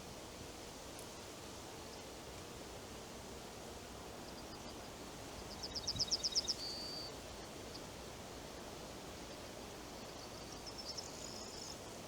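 Wind moving through forest trees as a steady hiss, with a songbird singing a quick trill of about ten high notes ending in a short held note about six seconds in, and a softer, shorter phrase near the end.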